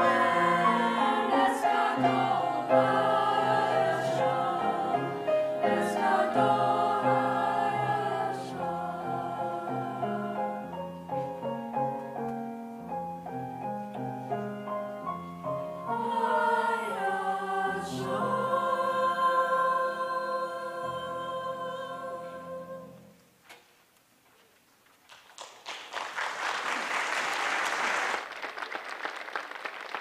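Choir singing with grand piano accompaniment, the song ending on a held chord near the end. After a moment of silence the audience applauds.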